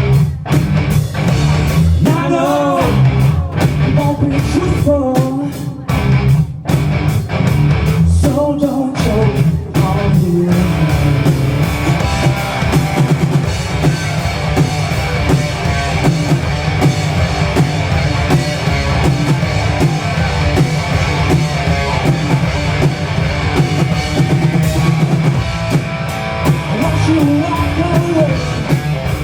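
A rock band playing live: singing over a drum kit and guitar. The sung line stands out for the first ten seconds or so, then the band plays on more densely.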